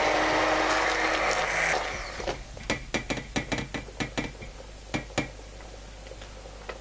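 Electric blender puréeing pea soup, its motor running with a steady hum and then switched off about two seconds in. A run of about a dozen sharp clicks and knocks follows over the next three seconds.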